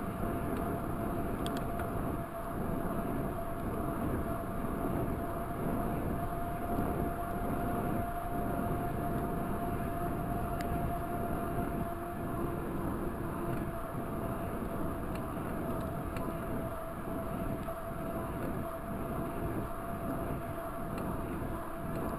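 Raleigh Talus 29er mountain bike rolling along a paved trail: a steady rumble of tyres and wind, with a constant thin whine over it.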